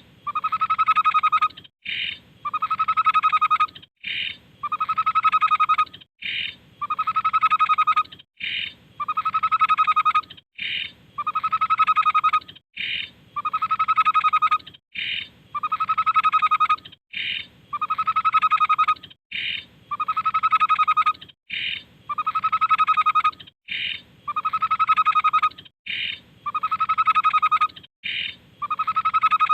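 A tepus (babbler) singing a two-part phrase over and over, about every two seconds. Each phrase is a long, loud note followed by a short, higher note.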